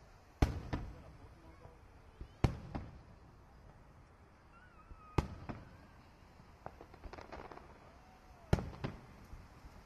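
Aerial firework shells bursting, four loud booms a few seconds apart, each followed by a weaker crack shortly after. A cluster of small pops comes just before the last boom.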